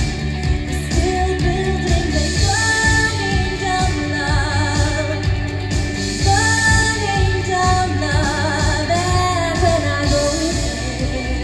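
A woman singing a pop-style song into a microphone with a musical accompaniment. She holds long notes with vibrato over a steady bass.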